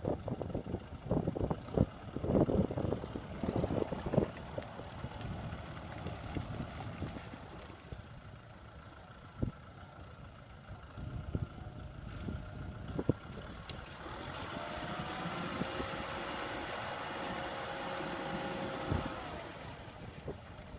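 Vehicle engine running, with irregular knocks and clatter through the first half. About two-thirds in, a steady engine drone comes up slightly in pitch, holds for a few seconds, then drops away near the end.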